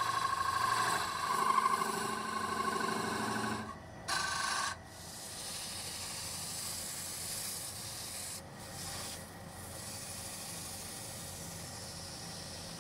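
A wood lathe runs with a steady whine while a turning chisel cuts a spinning wooden spindle. From about four seconds in, abrasive paper is held against the spinning wood, giving an even rubbing hiss.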